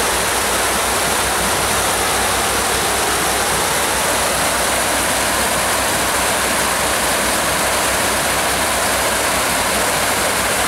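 Creek water rushing over rock ledges in whitewater rapids, a steady, unbroken rush.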